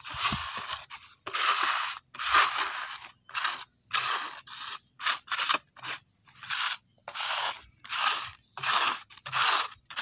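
Metal scraper blade dragged in repeated short strokes across a wet wooden tabletop, about one to two strokes a second, scraping white acid-wash residue off the wood.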